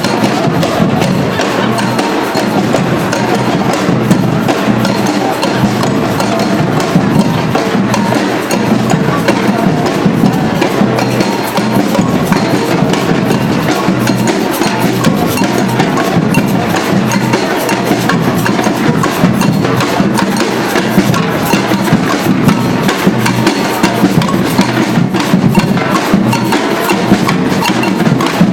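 Batucada-style street percussion band playing a steady, dense drum groove of bass drums, snares and sharp clicking strikes, without a break.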